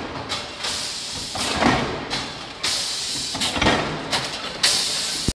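Pneumatic air feeder cycling as it pushes metal strip off a coil cradle. Sudden hisses of air and short knocks repeat about every two seconds.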